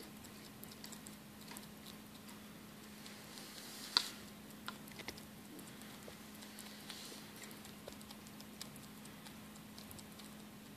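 Hoary bat chewing a mealworm: faint, irregular small clicks and crackles, with one sharper click about four seconds in, over a faint steady hum.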